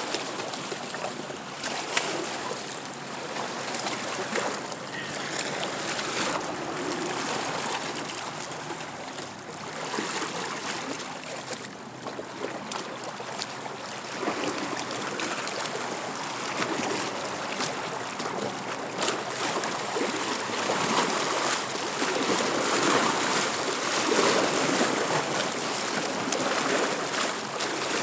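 Steady rush of lake water lapping at a rocky shore, with people wading and splashing in the shallows. There are scattered light knocks, and the water gets louder in the second half.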